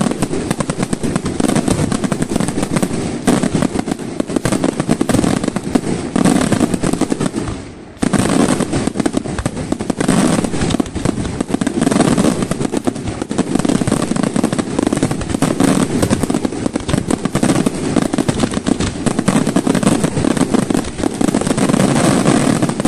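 Aerial fireworks going off in a rapid, continuous barrage of bursts and crackling, so dense that the reports run together. It dips briefly about eight seconds in, then comes back at full strength.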